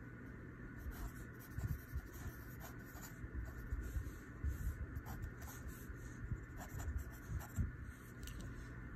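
Hand-writing on paper: irregular scratching pen strokes as the lettering is written, with soft low bumps against the surface.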